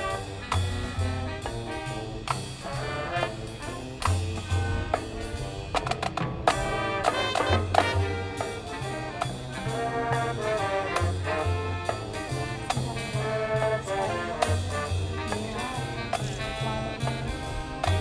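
High school marching band playing: brass chords over a steady drum beat, with the drum line keeping an even pulse and bass drums hitting throughout.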